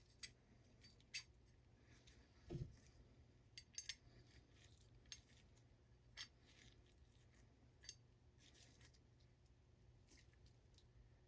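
Faint, scattered metallic clicks and light knocks from AR-15 bolt carrier group parts being fitted back together by hand during reassembly.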